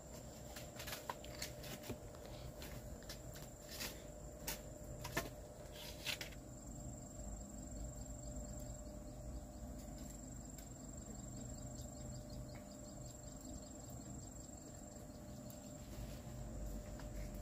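Insects trilling steadily with a thin, high tone, over a low background rumble. A scatter of sharp clicks and ticks comes in the first six seconds.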